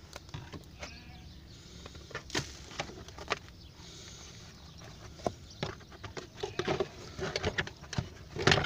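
Scattered light clicks and knocks of a metal cover and tools being handled and fitted under a car, with a louder run of knocks near the end.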